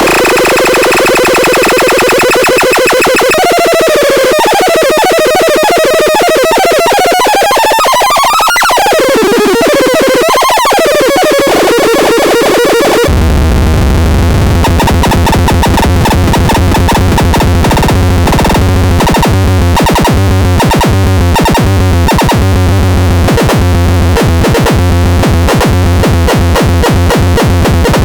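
Synthesized electronic tones from the Ultra Tanz: a pitched tone sweeping up and down in pitch, then about thirteen seconds in a sudden switch to a fast pulsing pattern over a loud low buzz.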